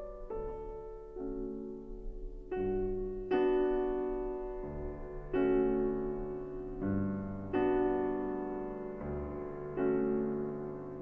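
Background piano music: slow chords, each struck and left to ring out and fade before the next.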